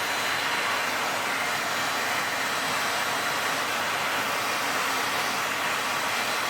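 Sebo Felix vacuum cleaner running steadily, its motor noise and exhaust air rushing out through the post-motor filter vents.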